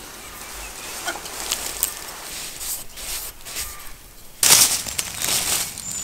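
Close rustling and scraping handling noise, growing louder and loudest from about four and a half seconds in, with faint bird chirps behind.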